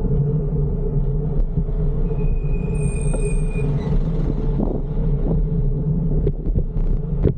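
Steady low rumble of road traffic and wind while riding a bicycle through city streets. A thin high whine sounds from about two to four seconds in, and there are a few sharp clicks near the end.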